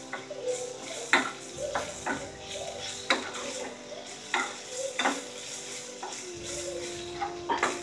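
Onions, curry leaves and ginger–green chilli paste frying in hot oil in a small metal pan, sizzling steadily while a spoon stirs them. The spoon scrapes and clinks against the pan at irregular intervals, roughly once a second.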